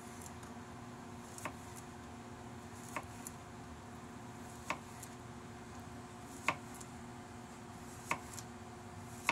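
Knife slicing garlic cloves on a plastic cutting board: a sharp tap each time the blade meets the board, about every second and a half, over a faint steady hum.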